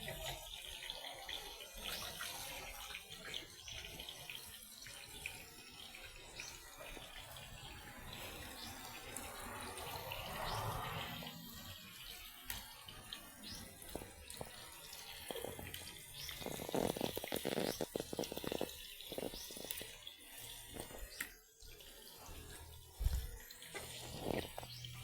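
Water running and splashing, as at a sink or basin where things are being washed, with scattered clicks and knocks throughout and a busier stretch of rapid ticking about two-thirds of the way in.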